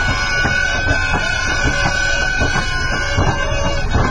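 Snake boat race on the water: a loud, steady rumble with a constant high tone running through it and irregular knocks.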